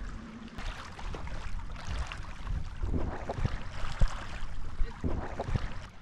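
Paddle strokes splashing in lake water, with wind rumbling on the microphone. A sharp knock comes about four seconds in.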